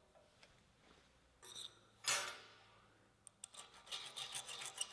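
Metal parts set down on a steel welding table: a light clink, then a louder clank that rings briefly. Then quick rasping strokes, several a second, of metal being worked by hand on a small metal strip.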